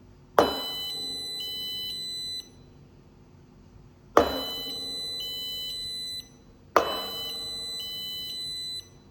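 Three times, a sharp impact sets off a maker board's sound-activated burglar alarm. Each time its buzzer sounds for about two seconds: four half-second beeps that alternate between two pitches.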